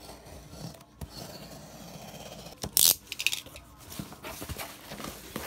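Box-cutter blade scraping along the packing tape of a cardboard box, a steady rasp. About three seconds in there is a short loud rip as the box is opened, then rustling and light knocks of the cardboard flaps being folded back.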